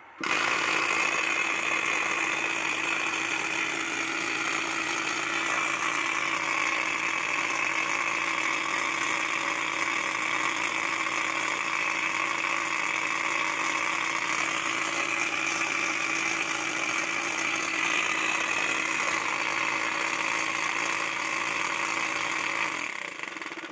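Cut-open refrigerator compressor running dry without oil, switched straight on. It starts suddenly, runs with a steady, dense mechanical noise for about 23 seconds, then is switched off and flutters to a stop near the end. The pump works properly, but running without oil risks burning out the motor coil.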